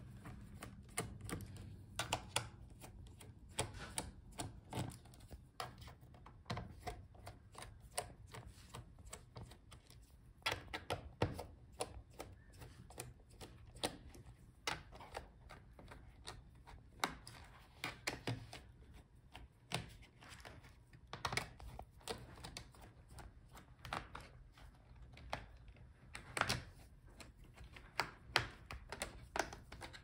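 Small screwdriver taking out a laptop's bottom-case screws: faint, irregular light clicks and taps as the bit seats in each screw and turns it out, with an occasional louder tick.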